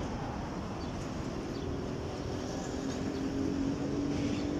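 A motor engine running with a steady low hum that comes in about a second in and grows louder, over a noisy yard background, with a few faint, short, high peeps.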